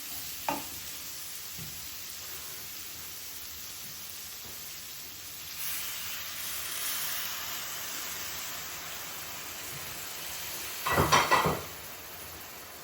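Chicken curry sizzling in a sauté pan as chicken stock goes in, deglazing the browned bits from the bottom; the hiss grows louder about halfway through. Near the end a spoon clatters and scrapes against the pan a few times.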